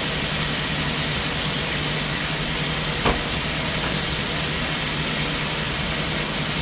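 Sirloin steak tips searing in butter in a hot frying pan, sizzling steadily over the steady hum of a fan, with a single small click about three seconds in.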